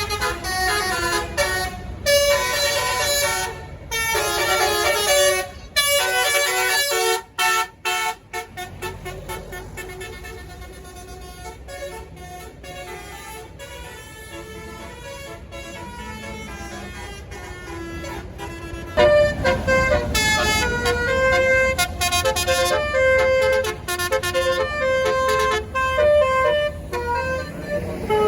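Bus's Basuri telolet horn, a multi-note musical air horn, playing melodies in quick stepped notes. The horn is loud at first, breaks up and goes fainter about a quarter of the way in, and comes back loud about two-thirds of the way through, over a low engine rumble.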